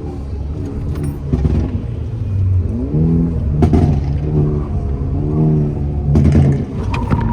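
Volkswagen Mk6 Golf GTI's 2.0-litre turbocharged four-cylinder engine running hard, its pitch climbing and dropping as it revs up and shifts. A few brief sharp noises come in over it, one about four seconds in.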